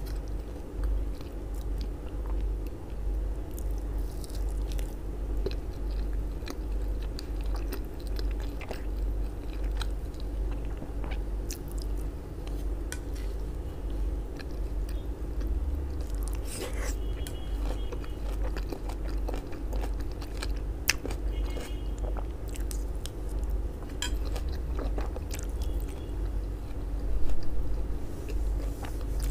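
Close-miked chewing of a mouthful of grilled sausage and chopped salad with mayonnaise: wet mouth sounds with small crunches and clicks, now and then a plastic utensil scraping and tapping on the plate. A steady low electrical hum runs underneath.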